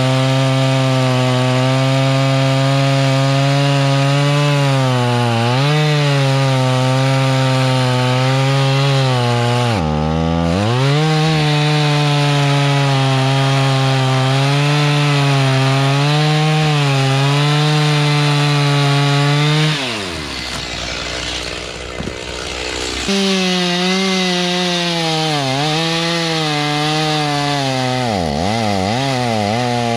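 Rural King RK55 tractor engine driving a Woodland Mills WG24 PTO stump grinder as the cutter wheel chews into a stump. The engine note sags under load and recovers, with a deep dip about ten seconds in and repeated dips near the end.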